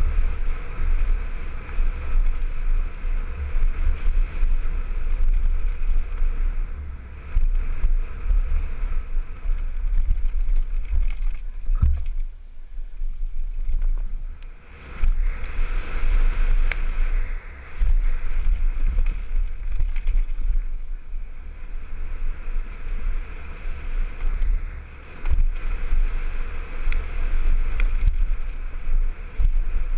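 Wind buffeting a helmet-mounted camera's microphone and the rattle of a downhill mountain bike running fast over a dirt trail, with a few quieter stretches, the longest about twelve seconds in.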